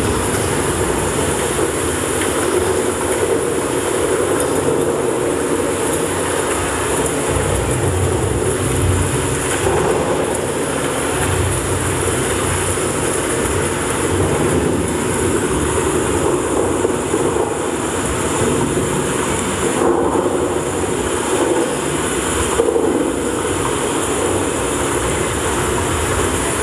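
A loud, steady rumbling noise from the dance's playback track, with no clear tune, lasting the whole stretch.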